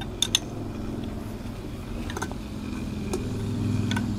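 Sharp metal clicks of a half-inch spanner and bolts being fitted to the cast-iron volute at the pump's base, two close together near the start and a few fainter ones later, over the steady hum of a motor vehicle engine that grows louder towards the end.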